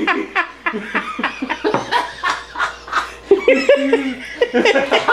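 People laughing in many short bursts.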